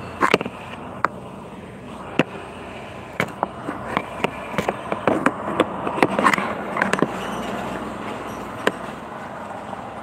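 Irregular clicks, taps and rustling, busiest in the middle few seconds, from a phone being handled with fingers rubbing over it close to its microphone.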